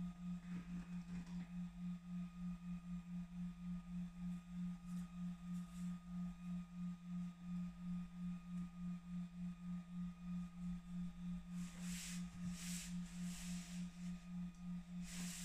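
A steady low hum that pulses several times a second, with a few brief scuffing sounds near the end as a hand presses a sheet of MDF down onto masking tape on the CNC bed.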